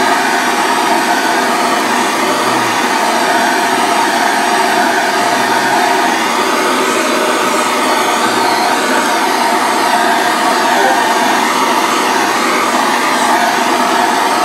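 Handheld gas blowtorch burning with a steady, loud hiss, its flame played over roast chicken skin to crisp it.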